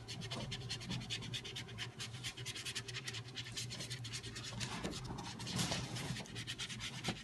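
Paintbrush bristles scrubbing thick paint onto paper in quick back-and-forth strokes: a steady run of short scratchy strokes, several a second.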